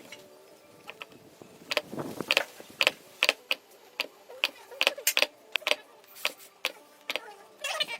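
A series of sharp, irregular taps or clicks, roughly one to two a second, some with a short ring after them.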